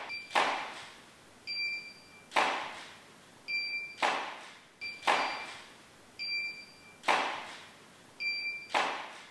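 Studio photo shoot: a camera and studio flash fire six times, one shot every one to two seconds, each shot a sharp pop that dies away quickly. About a second after most shots comes a short high beep, the flash unit signalling that it has recharged and is ready.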